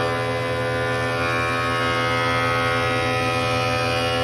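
Benchtop thickness planer running steadily with a constant motor hum and whine while it planes a rough-sawn white oak board fed through it.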